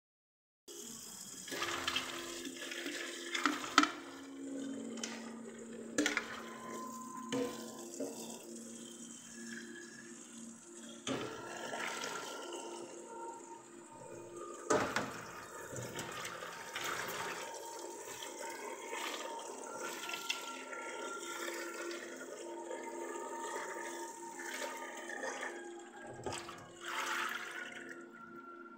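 Tap water running hard into a perforated metal colander of pumpkin seeds being rinsed in a metal sink, with a few sharp knocks of metal and seeds.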